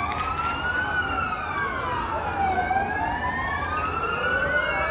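Several air-raid sirens wailing together, each rising and falling slowly in pitch and out of step with the others, sounded across the city at W-hour to commemorate the outbreak of the 1944 Warsaw Uprising. A low crowd hum lies underneath.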